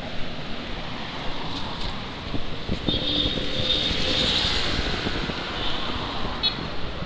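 Road traffic passing on a wet road, with steady tyre and engine noise. A motor scooter goes by close about halfway through, bringing a brief rising and falling whine.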